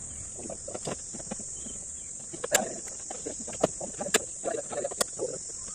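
Irregular metallic clicks and clinks of a spanner working the bolts of the AC condenser and its radiator bracket, with three sharper clinks in the second half. A steady high chirring of insects carries on behind.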